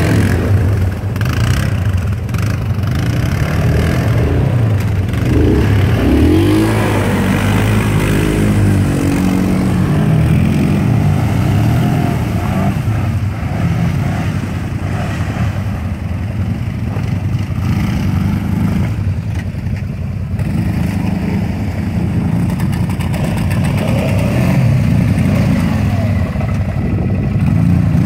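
Quad ATV engines running and revving as the quads churn through shallow water and broken pond ice, with water splashing. The revs rise and fall a few seconds in.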